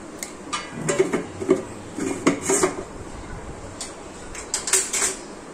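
Steel kitchen containers, lids and a spoon clinking and knocking together as spice containers are handled, a string of sharp clinks busiest in the first half and again near the end.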